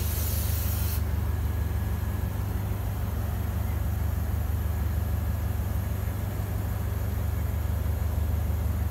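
Diesel engine of a DEMU power car idling with a steady low hum. A hiss at the start cuts off suddenly about a second in.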